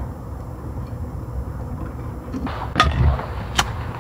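Two sharp knocks about a second apart near the end, the first with a dull thump, over a steady low rumble.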